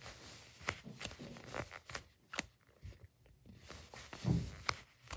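Hands squeezing and rubbing a soft foam squishy toy: scattered short crackles and fingernail clicks, with a louder soft thump a little past four seconds.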